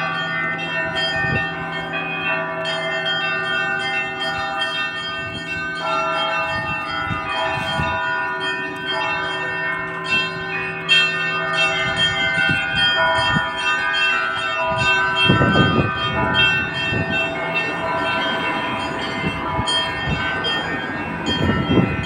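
Orthodox church bells rung together in a continuous peal, several bells of different pitches struck over and over so that their ringing overlaps.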